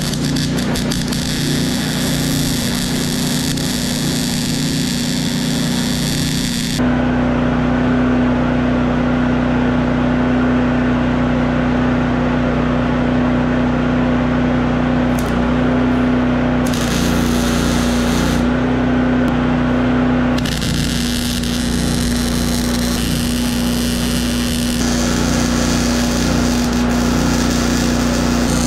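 MIG welder arc crackling and hissing as steel electrical boxes are tack-welded to a steel container ceiling: a run for the first several seconds, a pause of about ten seconds, then several shorter runs toward the end. Under it, the steady hum of the generator powering the welder.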